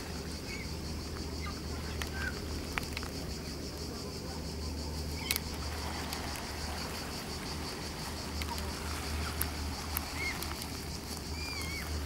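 A steady, finely pulsing drone of insects, with a few short bird chirps, a low steady rumble, and scattered sharp clicks, the loudest about five seconds in.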